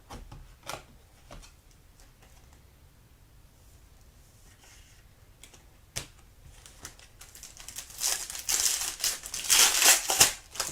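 A few light clicks, then from about seven seconds in loud crinkling and tearing of a foil trading-card pack wrapper being torn open.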